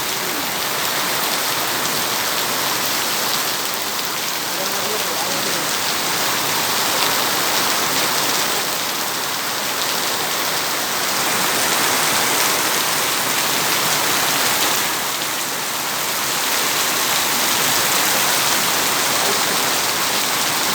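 Heavy rain pouring steadily, with slight swells in loudness.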